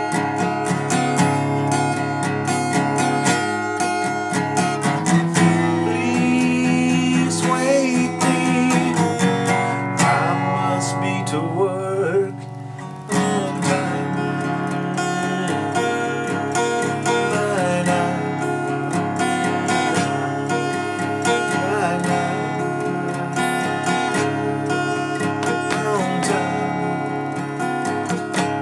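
Steel-string acoustic guitar strummed and picked in an instrumental break between verses, with one brief drop in level about twelve seconds in.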